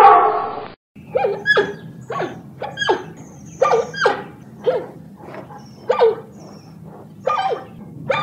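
A dog giving about ten short, high yelping barks, each falling in pitch, at an irregular pace. Before them, a loud drawn-out pitched call fades and cuts off a little under a second in.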